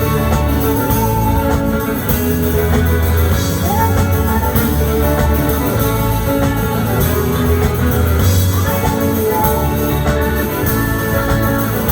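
Rock music: guitars over a steady bass and drum kit, playing on without a break.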